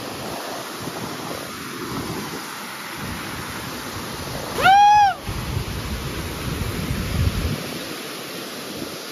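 River water rushing steadily, with one short whistle-like call about halfway through that rises then falls and is the loudest sound.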